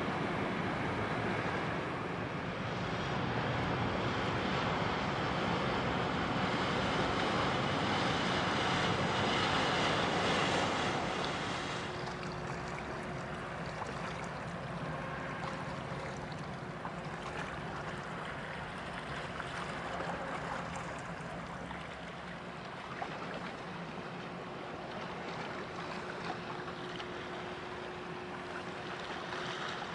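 Tugboat's engine running and its propeller churning the water, a steady rushing noise. About a third of the way in it gives way to quieter harbour ambience with a faint steady low hum of machinery.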